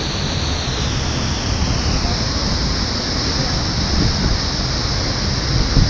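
Waterfall pouring down close by, a steady loud rush of water, with a few low rumbles near the end.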